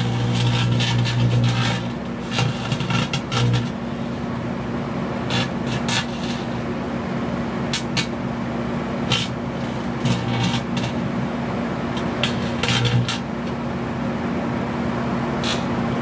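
Microwave oven running with its steady electrical hum while a Samsung 850 Evo SSD inside arcs, giving irregular sharp snaps and crackles that come in clusters as the drive's connector burns.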